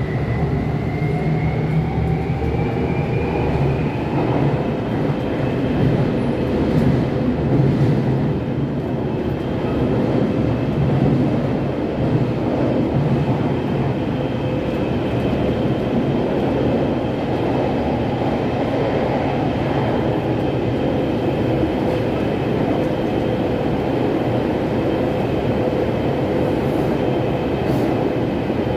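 Taipei Metro C321 train running in a tunnel, heard from inside the car: the GTO-VVVF traction inverter's whine rises in pitch over the first few seconds as the train accelerates, then holds steady over the continuous rumble of wheels on rail.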